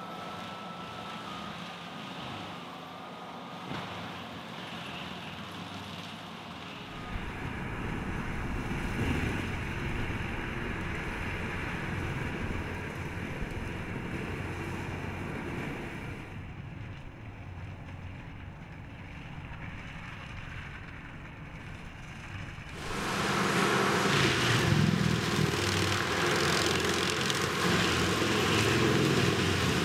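Vermeer FT300 forestry tractor running, its diesel engine and front drum mulcher head grinding brush and small trees. The noise is continuous but shifts in level several times. It is loudest over the last several seconds.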